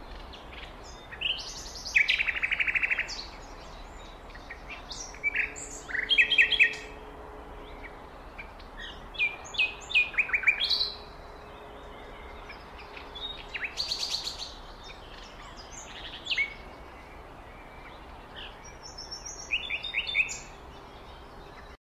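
Songbirds chirping and singing in short, repeated phrases over a steady background hiss; the sound cuts off abruptly near the end.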